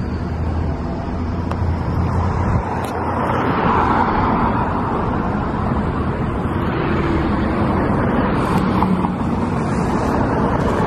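Street traffic: cars driving past on a city street, a rush of engine and tyre noise that swells as each vehicle passes, loudest about four seconds in.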